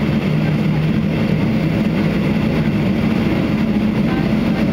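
Boeing 737-800's CFM56 jet engines and airflow, a loud steady drone heard from inside the passenger cabin during the takeoff.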